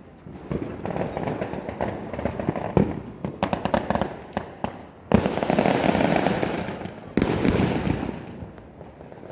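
Fireworks and firecrackers going off in a New Year celebration: scattered bangs, then a rapid string of cracks, then two loud bursts about five and seven seconds in, each trailing off in a second or two of dense crackling.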